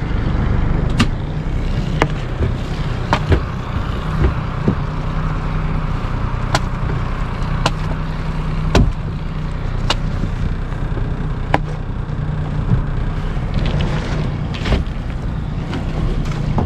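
Boat motor running steadily while the hull grinds through sheet ice, with sharp knocks and cracks about every second or so as the ice breaks.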